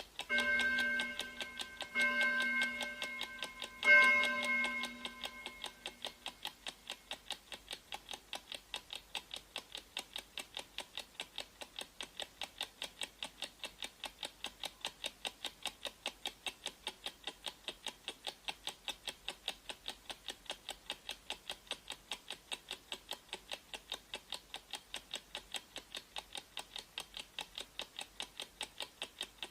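Three ringing tones about two seconds apart, the third the loudest, then a countdown timer's clock-ticking sound effect going steadily at about four ticks a second.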